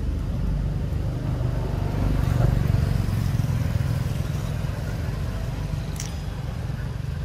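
A motor engine running with a low, steady rumble that swells slightly about two seconds in. A single sharp click near the end.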